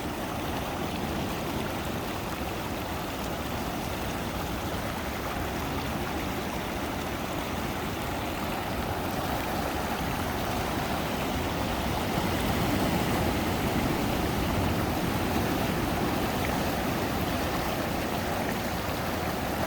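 Ocean surf washing steadily on the shore, a continuous rushing of water that swells a little louder about two-thirds of the way through.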